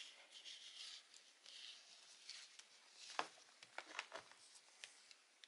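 Faint rustling and a few light clicks of a multimeter and its test leads being handled and switched on, the strongest click about three seconds in.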